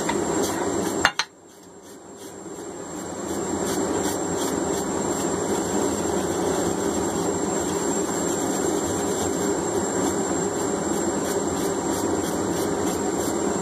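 Steady roar of a running forge under the scratching of a hand wire brush scrubbing scale off a red-hot forged hammer head on the anvil. A sharp click about a second in, after which the sound drops away and swells back over the next few seconds.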